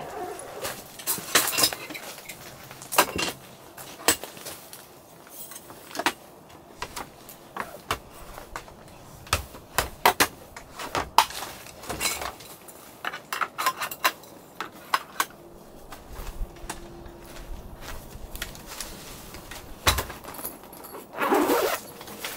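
Camping gear being handled and packed: a bamboo folding table and other wooden and metal pieces give repeated clicks, knocks and clinks, with a louder swish near the end.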